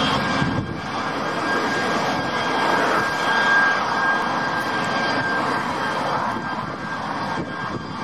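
Airbus A330 airliner's jet engines on final approach: a steady rushing jet noise with a thin, high, even whine running through it.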